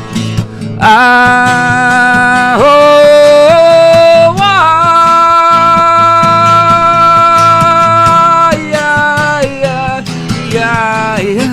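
Live acoustic guitar strummed steadily under a wordless sung melody that comes in about a second in, climbs, holds one long note through the middle and breaks into shorter notes near the end.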